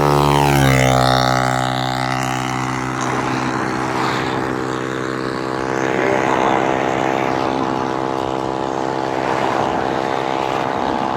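A motor's steady pitched hum with many even overtones. Its pitch falls over about the first second and then holds steady.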